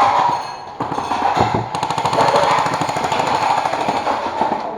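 Airsoft electric gun firing on full-auto: a rapid, even rattle of shots that runs for several seconds and stops near the end.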